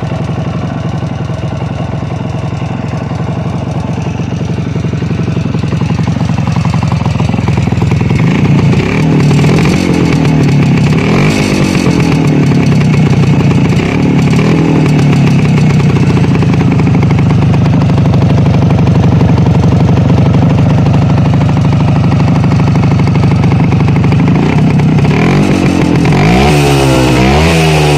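A 1973 CZ 125 Sport's single-cylinder two-stroke engine running, first at a steady idle, then revved up and down several times from about eight seconds in, with more revving near the end. It is heard close to the exhaust silencer.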